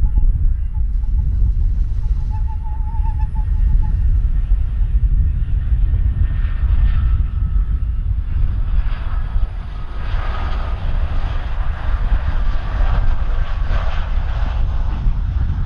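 Allegiant Airbus A320-family airliner on final approach with gear down. Its jet engines' roar and whine build from about six seconds in as it comes close, over a steady low rumble.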